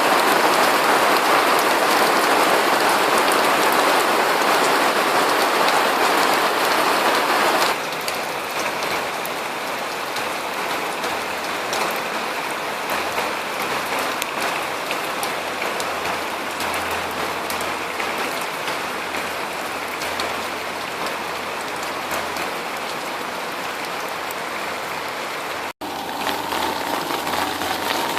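Steady rain falling on hard surfaces, an even hiss picked up by a phone microphone. About eight seconds in it abruptly becomes quieter, and near the end it cuts out for an instant before a faint low steady hum joins it.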